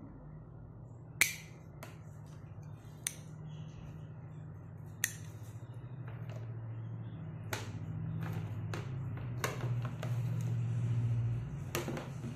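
Sharp plastic clicks and taps as a small fountain pump and its plastic fittings are handled and pushed together. One loud click comes about a second in, with a quicker run of clicks in the second half, over a steady low hum.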